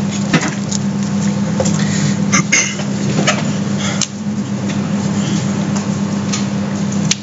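Steady low hum over room noise, with a few brief clicks and knocks scattered through.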